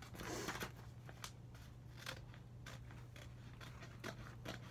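Scissors cutting paper: scattered quiet snips and a brief paper rustle about the first half-second, over a faint steady low hum.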